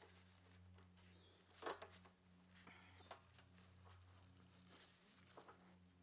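Near silence over a low steady hum, with a few faint clicks and taps of a tool and gloved hands working the inlet hose fitting on a hydraulic gear pump, the clearest about two seconds in.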